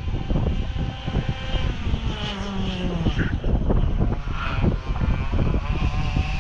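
Wind buffeting the microphone over the steady drone of an unseen engine, whose pitch slides down around the middle as it passes.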